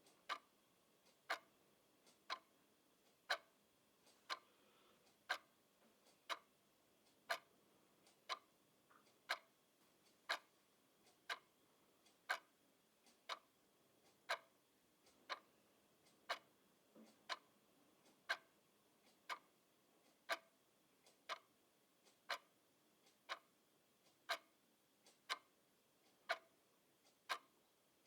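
Clock ticking steadily, a sharp click about once a second.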